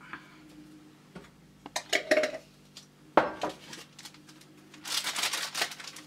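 Small glass jar clinking and knocking as it is handled and set down, with one sharp knock about three seconds in, then a paper packet rustling near the end.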